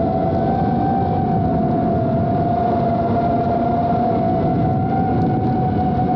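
FPV quadcopter's electric motors and propellers whining at a steady high pitch that wavers slightly, over a dense rushing noise of propeller wash, as heard from the drone's onboard camera.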